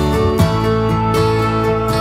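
Instrumental background music with held chords and a steady beat.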